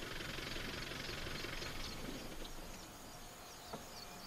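Safari 4x4's engine running steadily as it drives across open grassland, dropping away about three seconds in. After that comes quieter open-air ambience with faint high chirping.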